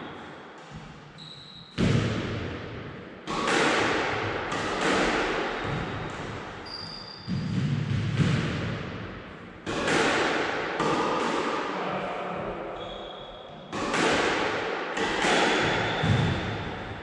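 A squash ball being hit back and forth in a backhand drill: sharp racket strikes and wall hits, one every second or few, each ringing out in the court's echo. There are a few brief high squeaks of shoes on the court floor.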